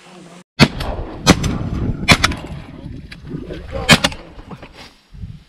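Shotguns firing at a duck in flight: about five blasts over some three and a half seconds, two of them almost on top of each other.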